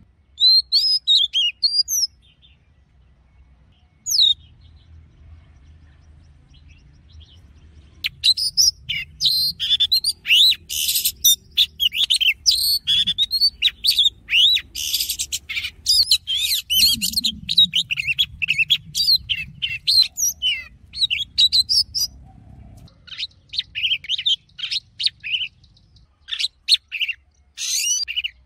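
Oriental magpie-robin singing: quick phrases of varied whistled notes and trills, sparse for the first several seconds, then a long, dense run of song with a few harsh, scratchy notes mixed in.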